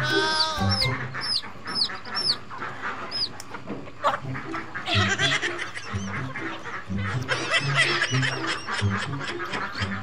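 Background music with a repeating bass line, over poultry calls: a string of short high falling peeps in the first few seconds, then a busier patch of calls from about halfway through.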